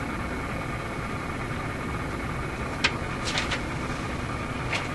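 RCA A25 tube radio playing steady hiss and hum through its speaker with no signal tone coming through. There is a sharp click about three seconds in, then a few fainter clicks.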